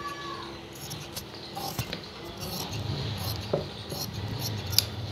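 Tailor's scissors cutting through black suit fabric: a few sharp snips with faint rustling of the cloth between them. A low steady hum comes in about halfway through.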